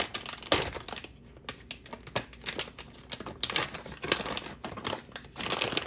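Plastic bag of peeled garlic cloves being opened and handled: irregular crinkling and rustling of the plastic.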